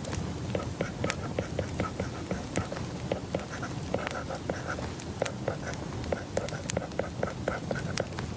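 Quick, irregular light clicks and taps from study work at a desk, several a second, with short scratchy strokes between them.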